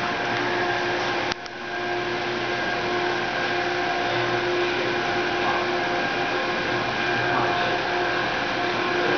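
Artificial-turf production machinery running: a roller machine winding backing fabric gives a steady hum with several steady tones. The sound briefly drops out just over a second in.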